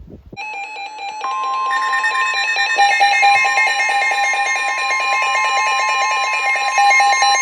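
Emergency alert attention tones sounding for a new severe thunderstorm warning. A rapidly pulsing alarm tone starts just under half a second in, and a steady high tone joins it about a second in. Both carry on steadily.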